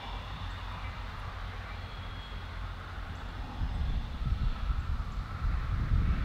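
Grand Trunk Western GP38-2 diesel locomotives, EMD 16-645 two-stroke V16 engines, approaching slowly with a low engine drone that grows louder about two-thirds of the way through, a faint steady whine over it.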